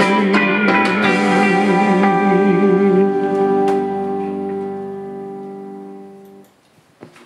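Closing bars of a country ballad backing track: a held final chord with a wavering guitar note. It fades and cuts off about six and a half seconds in, leaving a few faint clicks.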